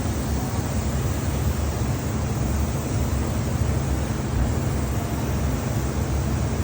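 Lacquer spray equipment running: a steady hiss of spraying air over a low rumble and faint hum, with no breaks.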